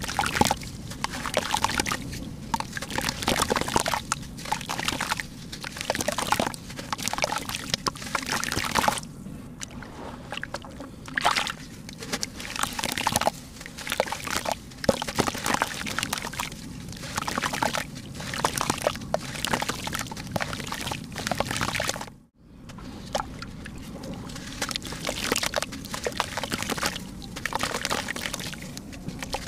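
Soaked red dirt crumbled by hand, lumps broken apart and crumbs dropping and splashing into a tub of muddy water, one stroke after another. The sound breaks off briefly about three quarters of the way through.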